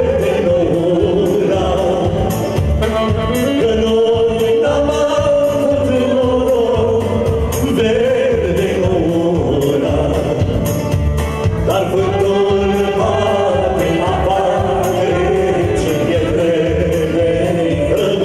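Live band playing a medley of Romanian songs: singing into microphones over keyboard and saxophone, with a steady dance beat.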